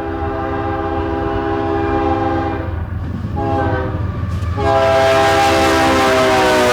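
Diesel locomotive's multi-chime air horn sounding for a grade crossing on an approaching coal train: the end of a long blast, a short blast, then a louder long blast that sags slightly in pitch near the end as the locomotive comes by. A low diesel engine rumble runs underneath.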